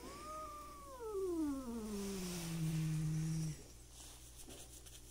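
A cat's long hostile yowl at a rival cat: one drawn-out call that rises briefly, then slides slowly down in pitch into a low growl, stopping about three and a half seconds in.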